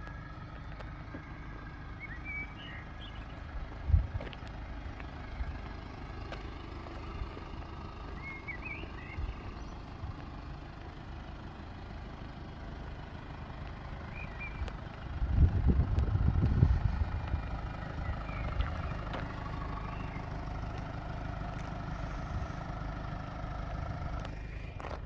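Outdoor background: a steady low rumble with a few faint high chirps, a single knock about four seconds in, and a louder low buffeting for about two seconds just past the middle.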